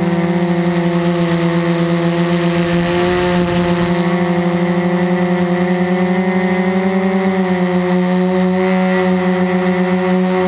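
Quadcopter's electric motors and propellers whining steadily, picked up close by the onboard camera, the pitch drifting slightly up and down as the throttle changes.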